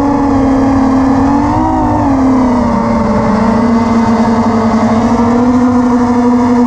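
Brushless motors and propellers of an Armattan Chameleon FPV quadcopter (2203 2300kv motors) whining in flight, the pitch rising briefly and then dropping about two seconds in as the throttle eases, then holding steady.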